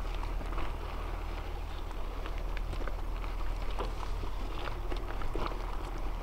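Mountain bike rolling over a rutted dirt and gravel track: tyres crunching and the bike rattling in quick, irregular clicks over a steady low rumble of wind on the microphone.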